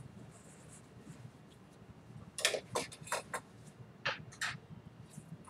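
Paper towels rustling and being torn off, a quick run of short crackles about two seconds in, over a low steady room hum.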